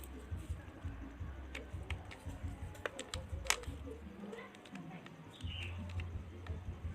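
Scattered light clicks and taps over a low steady hum; the hum drops out for about a second past the middle.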